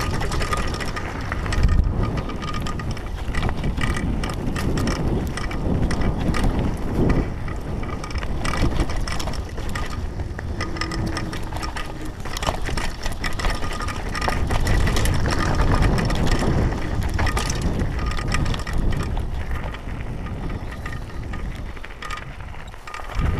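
Downhill mountain bike descending a dirt trail, heard from a camera mounted on the rider: wind buffeting the microphone, tyres rumbling over the dirt, and the bike rattling and clicking over bumps. It gets somewhat quieter shortly before the end.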